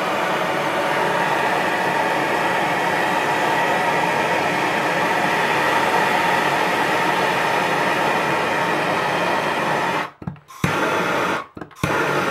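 Handheld MAPP gas torch flame hissing steadily while it heats a brass shower valve's soldered joint to sweat it onto copper pipe. The sound cuts out abruptly twice for a moment near the end.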